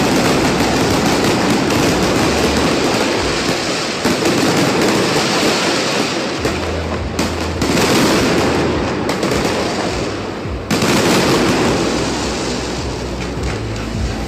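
New Year fireworks going off in a dense, continuous crackle of rapid bangs, with a brief let-up about two-thirds of the way through.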